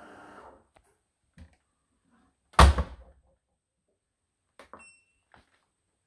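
Front-loading LG washing machine door pushed shut with a single heavy thunk about two and a half seconds in. A couple of seconds later comes a click and a short high beep from the control panel.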